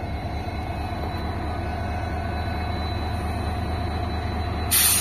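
WDG4 diesel locomotive's EMD two-stroke V16 engine running steadily as it hauls a passenger train out along the platform, its low rumble growing slightly louder as it draws near. A sudden loud burst starts near the end.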